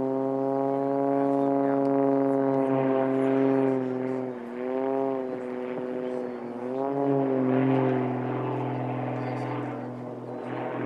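Aerobatic monoplane's piston engine and propeller droning overhead during an aerobatic sequence. The pitch holds steady, then dips briefly twice as the plane manoeuvres.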